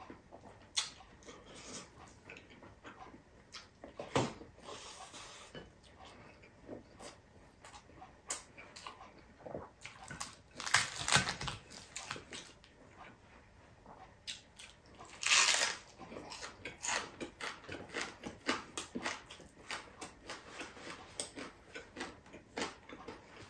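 Close-miked eating by hand: wet smacking and chewing of rice and fish, with many small clicks. Two louder bursts of crunching crackle come about eleven and fifteen seconds in as the crispy fried milkfish is torn and bitten.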